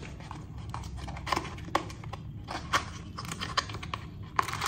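A small kraft-cardboard box being opened by hand: scattered short scrapes and taps of the card flaps and lid.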